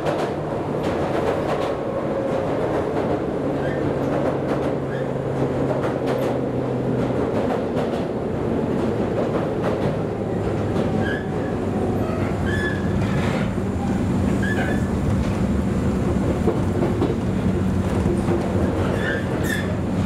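Running sound heard inside a JNR 103 series motor car at speed: traction-motor hum and wheels rumbling on the rails, with clickety-clack over rail joints. The low hum shifts pitch about seven seconds in, and short squeaks come in from about halfway.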